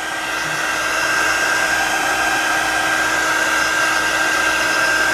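Hot-air blower running steadily, a fan hiss with a steady high whine, heating orange-oil solvent on the old screen adhesive of an iPhone 6 LCD to soften it for removal. It gets a little louder during the first second.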